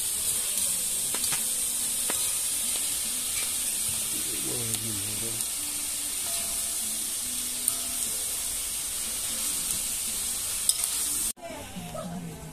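Meat sizzling in a steel wok over a wood fire, stirred with a metal spatula that clicks against the pan a few times. The sizzle cuts off suddenly near the end.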